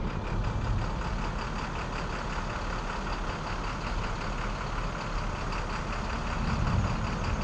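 A motor running steadily at idle, a low rumble with a faint even pulsing over it.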